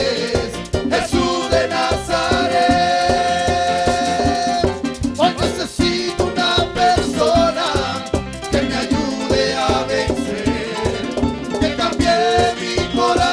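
Live band playing upbeat salsa-style Latin music with a steady beat, with a long held note a few seconds in.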